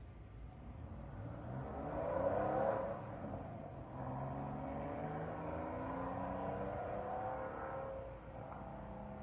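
Porsche 911 (993) air-cooled flat-six with a Fister exhaust accelerating hard, its pitch climbing to a loud peak about two and a half seconds in, dropping briefly at the shift, then climbing again in the next gear before easing off near the end.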